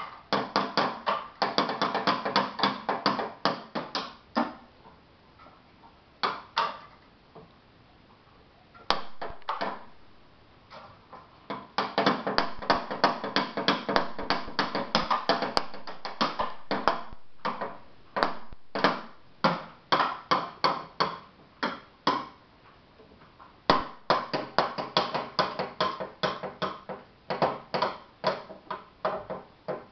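A toddler drumming with a stick on a row of wooden boxes used as a drum kit: quick runs of sharp, ringing wooden hits, several a second. They come in busy stretches with a pause of a few seconds early on and a shorter one later.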